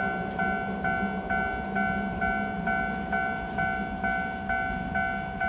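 Japanese level-crossing warning bell ringing steadily, a little over two strokes a second, as a Keisei 3000-series train rumbles through the crossing underneath.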